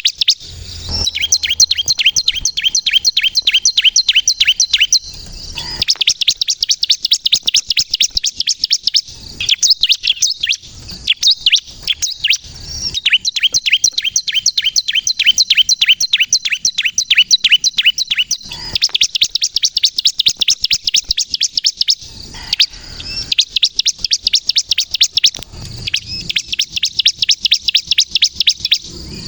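Bar-winged prinia (ciblek kristal) singing: long, rapid trills of sharp, high repeated notes, each run lasting several seconds before a short break. This is the loud, continuous 'gacor' song used as a lure and to provoke other ciblek into singing.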